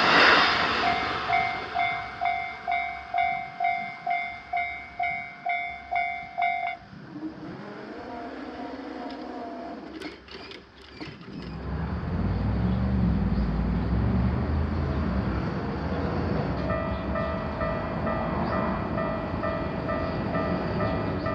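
Japanese railroad crossing alarm bell ringing in a steady beat of about two strikes a second, then stopping about seven seconds in. After a low rumble, a crossing alarm with a slightly lower tone starts ringing near the end.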